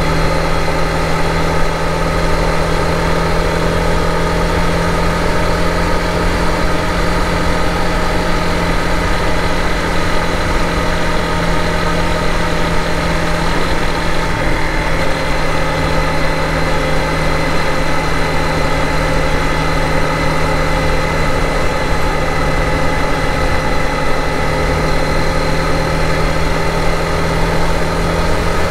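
Honda CRF250 Rally motorcycle's single-cylinder engine running at a steady cruising pitch, under a constant rush of wind and road noise.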